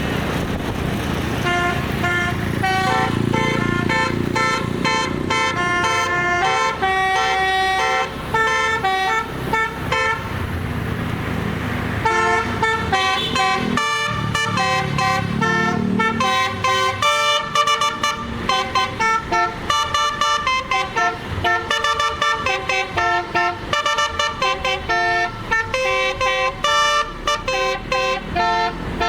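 Telolet basuri multi-tone horn playing a melody: several horn notes sound together and step from note to note, slower at first, then as quick, choppy short notes from about the middle on, over the low rumble of a running vehicle engine.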